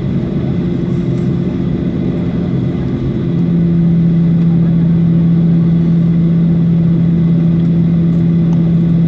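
Jet airliner's engines heard from inside the cabin while taxiing. About three seconds in, the drone grows louder and settles into a steady low hum.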